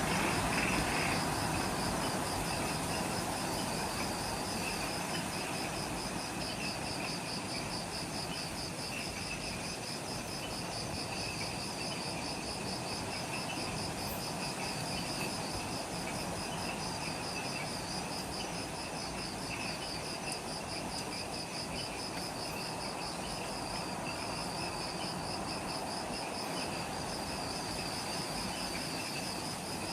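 Chorus of insects in jungle at dusk: a high, rapidly pulsing trill over a steady hiss of many others, with a lower trill that fades out about a second in.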